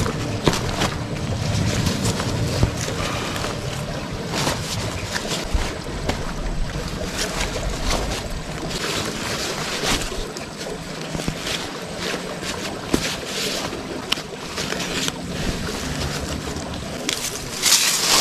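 Water sloshing and splashing, with scattered clicks and knocks.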